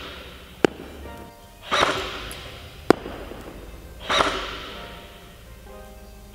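Airsoft SVU-AS bullpup electric gun (AEG) firing single semi-automatic shots, three about two seconds apart, each a short burst with an echoing tail. In between come brief sharp ticks, each about a second after the shot before it, typical of BBs striking the target.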